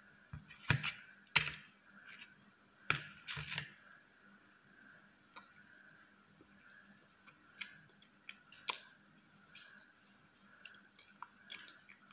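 Close-miked eating sounds of soft whipped-cream cake: a fork scooping and wet mouth clicks and chewing, heard as a string of sharp clicks, busiest in the first few seconds and sparser after. A faint steady tone runs underneath.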